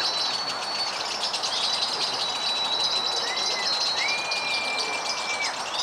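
Many lovebirds chattering at once in a fast, continuous trill, with long, steady, high whistled notes held over it.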